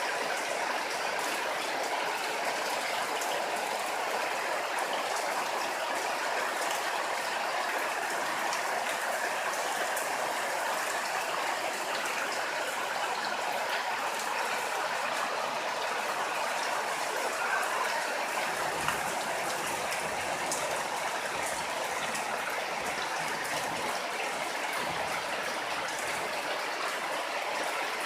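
Steady rain falling, a continuous hiss with scattered patter of drops.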